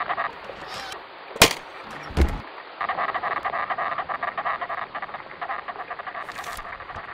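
A rapid, rhythmic chattering sound that stops, then a sharp click and a low thud, then the chatter starts again.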